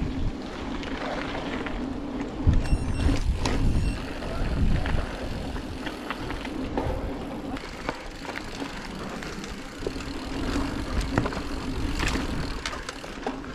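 Mountain bike riding down a dirt trail: a continuous rolling noise with scattered clicks and rattles over bumps, a steady buzz underneath, and surges of low wind rumble on the microphone.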